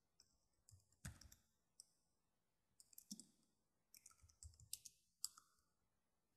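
Computer keyboard keys clicking as someone types, faint, in short bursts of keystrokes with pauses between.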